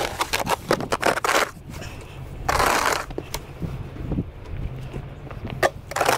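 Snow shovel crunching and scraping through snow in a run of short strokes, with a longer scrape about two and a half seconds in.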